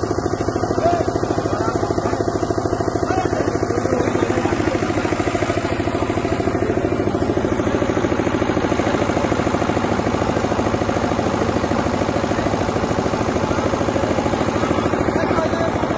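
An engine idling steadily, with an even, fast pulse.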